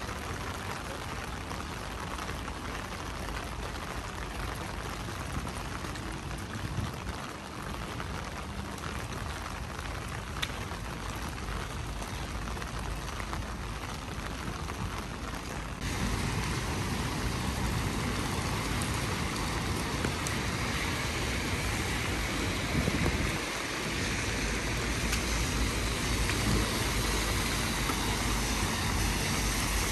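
Steady rain falling and pattering, with a low rumble underneath; about halfway through, the rain noise steps up louder and brighter and stays that way.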